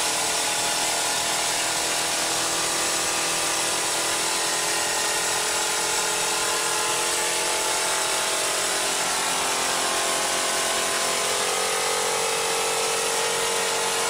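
Home-built air compressor whose pump is belt-driven by a motorcycle engine, running steadily.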